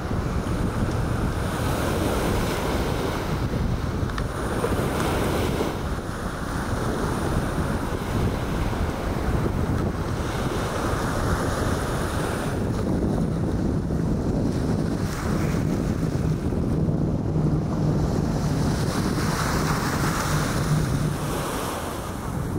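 Wind buffeting the microphone over the wash of waves at the shore, a steady low rumbling noise. A faint, steady low hum rises out of it for several seconds in the second half.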